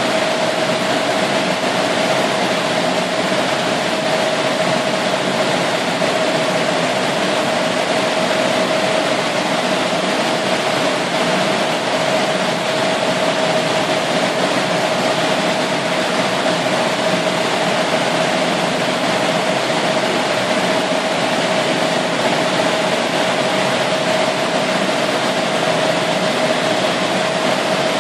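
Steady machine noise: an even hiss with a constant mid-pitched whine, unchanging in level.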